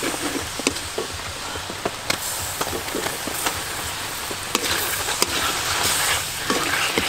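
Hot oil sizzling in a wok with scattered sharp pops as a chili mixture and then peeled boiled eggs fry, stirred with a wooden spatula.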